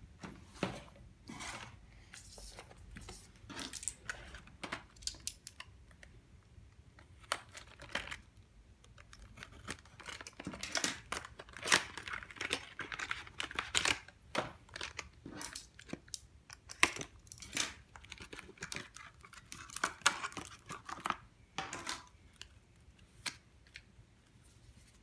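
Trading-card deck packaging being torn open by hand: the cardboard box and plastic wrapping crinkling and tearing in irregular bursts, with scattered clicks and rustles as the cards are pulled out.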